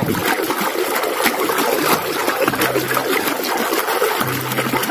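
Running water splashing steadily over a mud-caked toy as it is rinsed clean.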